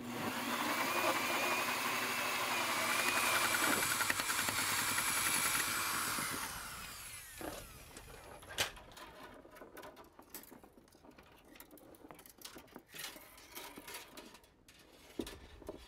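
Corded electric drill driving a hole saw up through wooden soffit board, running steadily with a high whine for about six seconds, then spinning down once the cut is through. Scattered clicks and knocks follow.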